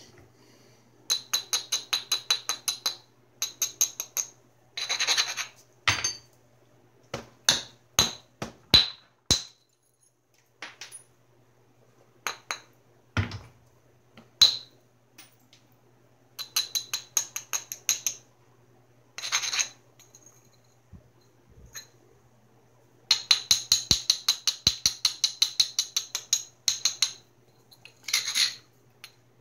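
Flintknapping a Georgetown flint biface: quick runs of rapid scratchy ticks as a stone is rubbed back and forth along the edge to grind the platforms, broken by single sharp cracks as the billet strikes and knocks off flakes.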